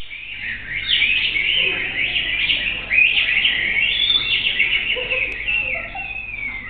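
A performer's vocal imitation of birdsong: a dense run of quick chirps and warbling trills, ending in a long falling whistle.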